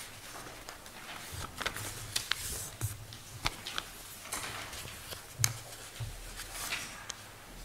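Room tone of a quiet meeting hall with scattered small clicks and knocks from people handling papers and objects at tables, the sharpest knock about five and a half seconds in.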